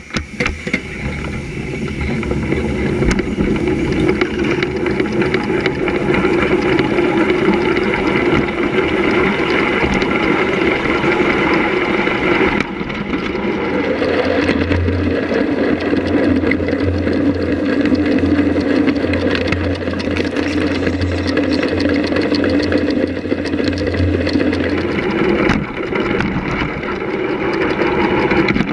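5-inch gauge Blowfly miniature steam locomotive running along its track, heard close to its wheels and side: a steady, loud mix of running noise. The sound changes abruptly about thirteen seconds in, and a low hum runs through the middle part.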